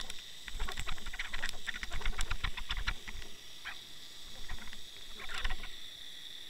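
Underwater fishing camera dragged over a sandy, shell-strewn seabed: bursts of clicks and crackles as its housing bumps and scrapes along the bottom, kicking up sand. Under them runs a steady high whine.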